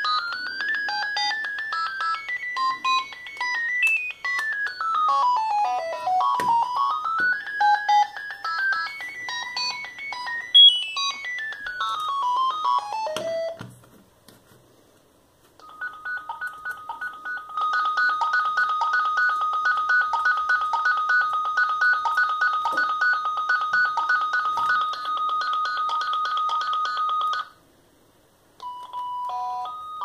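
Philips Fisio 620 mobile phone playing its built-in ringtones: first a quick melody with rising and falling runs of notes, then after a pause of about two seconds a different ring of one steady tone pulsing quickly, and near the end a third tune begins.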